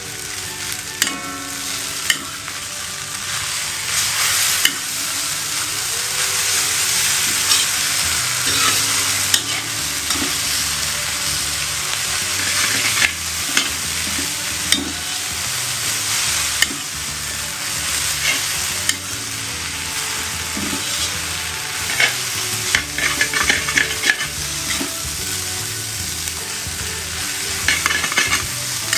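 Rice vermicelli being stir-fried, a steady sizzle in the hot pan with the spatula scraping and clicking against it many times as it tosses the noodles.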